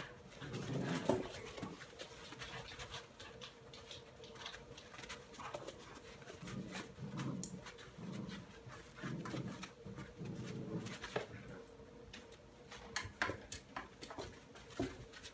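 Chocolate Labrador puppies play-fighting over a plush toy: a run of short, low growls and grumbles, with scuffling and scattered clicks of paws and the toy on pee pads.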